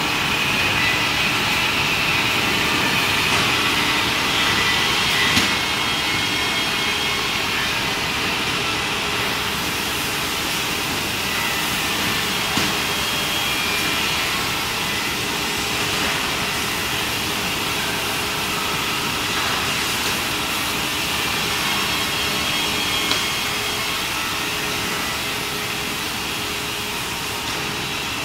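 Steady machinery noise of a woodworking panel factory, with a faint high whine and a few sharp knocks.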